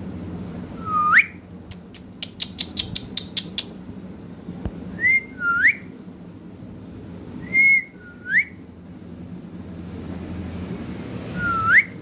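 Rose-ringed parakeets whistling: six loud, clear notes, each dipping and then sweeping sharply up, two of them led by a short level note. About two seconds in there is a quick run of about eight sharp clicks.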